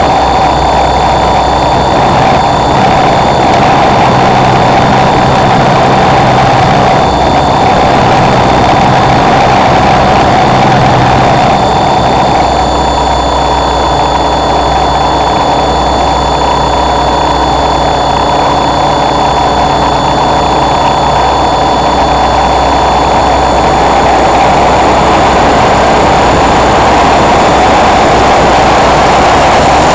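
Raptor E550S electric model helicopter in flight, heard from on board: a loud, steady motor and rotor whine with thin high tones above it and low wind rumble on the microphone.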